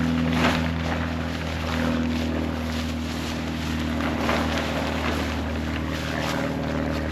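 A steady low mechanical hum like a distant engine, with irregular rustling and handling noise from a tarp being arranged over a ridge line.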